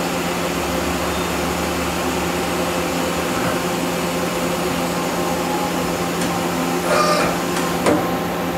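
Hitachi Seiki HITEC-TURN 25G CNC lathe running a program, its spindle turning at 250 RPM: a steady machine hum with a few held tones. A short whine about seven seconds in and a click a second later come as the tool turret moves and indexes.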